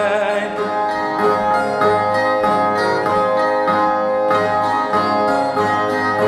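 Viola, the Brazilian folk guitar of cantoria, plucked in a steady instrumental interlude between sung verses, about two strokes a second over ringing strings. The last sung note fades out just after the start.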